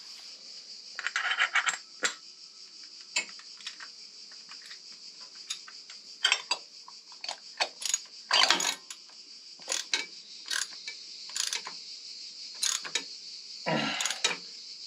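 Scattered metallic clicks, taps and short scraping rattles at irregular moments, from hands working parts on a motorcycle engine during an oil change. A steady high chirring of crickets runs underneath.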